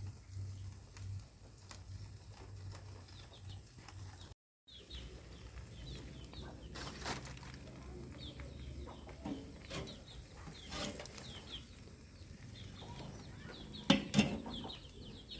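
Small birds chirping over and over in the background, with a few knocks and a louder clatter about a second before the end.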